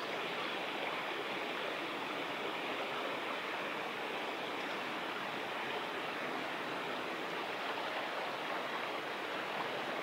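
Steady rushing of a small river's flowing water, with no change in level.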